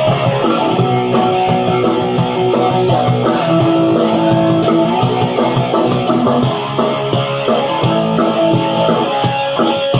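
Electric guitar played through a Line 6 Spider V30 modelling amp on a rock tone, with held notes and chords ringing into one another.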